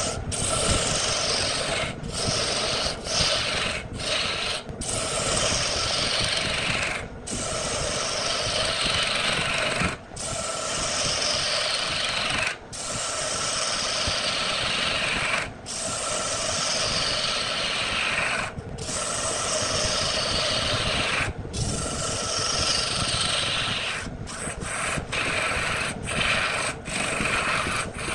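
Wood lathe with a hand-held gouge cutting into a spinning wooden blank: a continuous rough shearing hiss of the cut. It breaks off briefly every second or few as the tool comes off the wood between passes, and the hiss repeatedly slides down in pitch.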